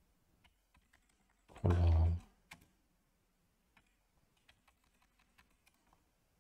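Computer keyboard typing: scattered light key clicks, coming faster in the second half. A brief voice sound about two seconds in is the loudest thing.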